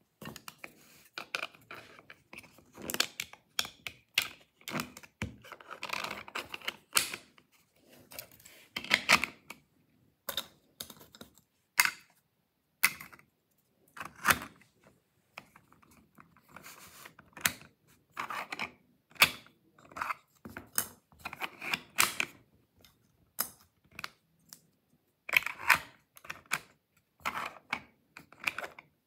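Irregular sharp clicks, knocks and short scrapes of 3D-printed plastic padlock parts being handled and fitted together. A plastic key is worked in the lock body.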